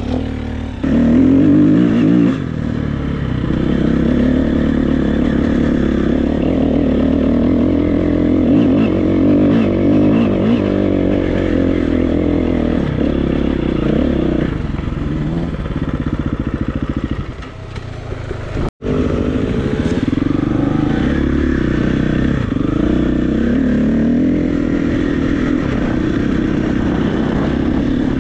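KTM 350 EXC-F's single-cylinder four-stroke engine revving up and down as the enduro bike is ridden, the pitch rising and falling with the throttle. The sound cuts out for a split second about two-thirds of the way through.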